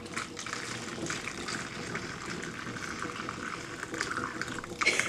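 Hot liquid Jello poured in a steady stream from a saucepan into a plastic tub, splashing and trickling over the headphones inside.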